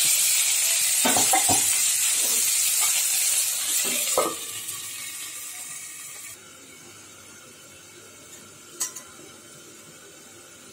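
Brinjal and vegetables sizzling as they fry in oil in a wok, with a steel spatula scraping and knocking against the pan a few times as it stirs. About four seconds in the sizzle fades and after a cut only a faint background remains, with one short click near the end.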